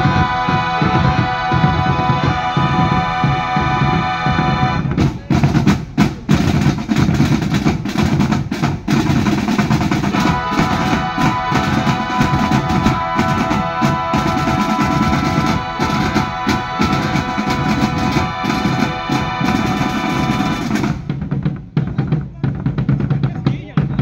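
Marching band drumline of snare drums and bass drums playing rolls and beats under a sustained melody line. The melody drops out about five seconds in, leaving only the drums, comes back about ten seconds in, and drops out again near the end.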